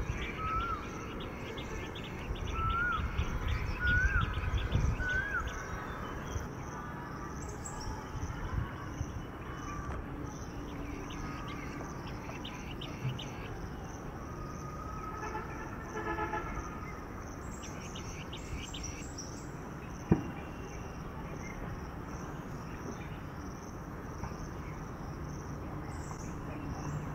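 Outdoor ambience of birds calling with short rising-then-falling whistles during the first five seconds over a steady pulsing insect chorus, with a low rumble underneath and a single sharp click about twenty seconds in.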